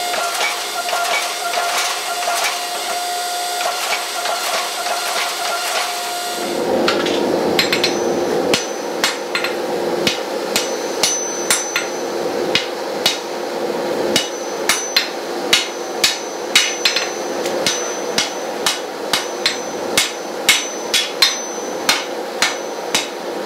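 A forge runs with a steady hiss and hum, then, about six seconds in, hammer blows on hot steel begin: a sword blank being forged to shape on the anvil, with sharp strikes about one to two a second to the end.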